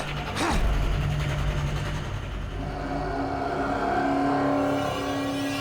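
Horror-score sound effect: a deep rumbling whoosh in the first couple of seconds that settles into a steady, held low drone from about halfway through.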